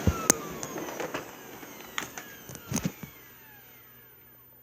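Hoover Elite upright vacuum's motor spinning down after being switched off: its whine falls in pitch and fades away. A few sharp clicks and knocks come in the first three seconds.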